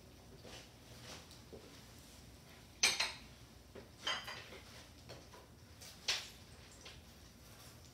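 Metal kitchen tongs and utensils clinking against a wok and dishes: a handful of sharp separate clinks, the loudest about three seconds in, others about four and six seconds in.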